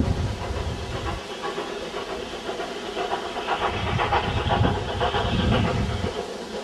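Ex-Wemyss Private Railway No.17 steam locomotive working a train up a gradient as it goes away, its exhaust beats coming in a quick, even rhythm. Wind buffets the microphone with low rumbles at the start and again in the second half.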